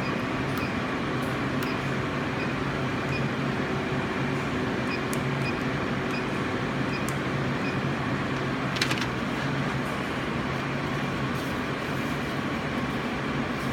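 Continuous inkjet coding printer running with a steady hum, over which keypad presses make light scattered clicks. About nine seconds in there is one short hiss.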